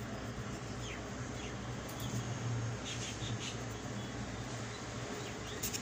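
A pencil scratching on drawing paper in a few short, faint strokes over a steady low hum.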